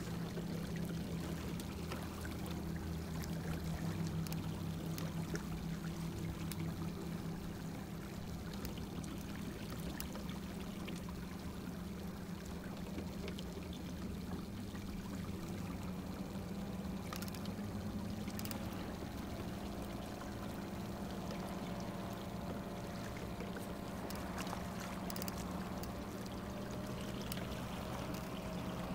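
A canoe's electric trolling motors run with a steady low hum while towing, over the wash and trickle of lake water along the hull. A fainter, higher whine rises slowly through the last third.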